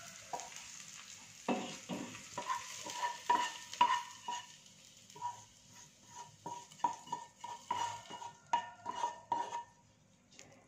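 A wooden spatula scraping and knocking sautéed leek and celery stalks out of a nonstick frying pan into a pot of broth: a quick, irregular run of short knocks and scrapes, each with a brief metallic ring. A fading hiss from the hot pan comes first and dies away in the first second or so.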